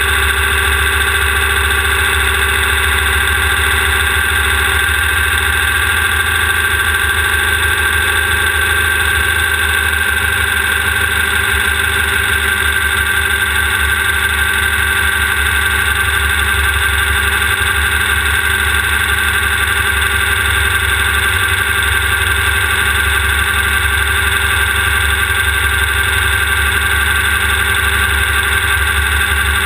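Air-cooled Volkswagen 1600 cc flat-four engine of a Class 1600 off-road race buggy, running loud and steady at an unchanging pitch.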